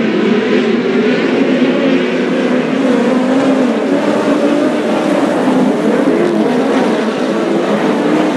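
A pack of open-wheel dirt-track race cars running together around the track, several engines drawn out at once and rising and falling in pitch as they come through the turns.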